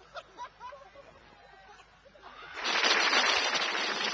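Faint crowd chatter, then about two and a half seconds in an audience suddenly breaks into loud clapping and cheering.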